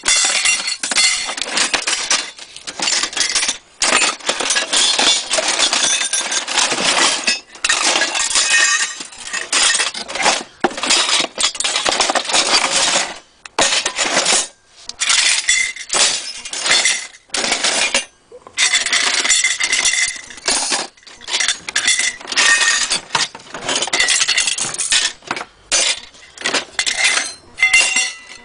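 Metal clock dials and glass bezel glasses clinking and clattering against each other as they are handled, in near-continuous spells broken by short pauses.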